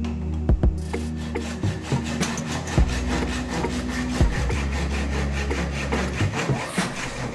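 Hand backsaw crosscutting a wooden board held in a vise, in quick, even push-pull strokes. The sawing starts about a second in.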